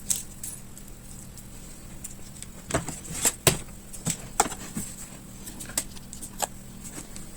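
Irregular small clicks and taps of hands and tools working the battery connector and internals of an opened laptop, the busiest stretch around the middle, over a faint steady hum.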